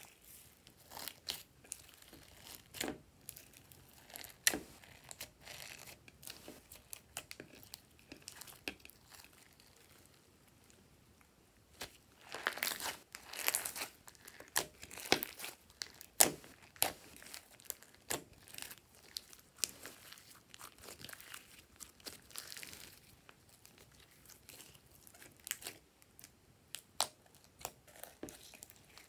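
Hands squishing and stretching glossy slime mixed with sequins and beads: a run of sticky clicks, pops and crackles, densest about halfway through.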